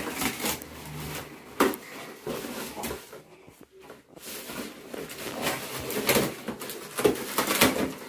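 Scissors cutting the tape on a cardboard parcel, then the cardboard box being opened and handled: irregular crackling, rustling and knocks, with a quieter stretch a little past the middle.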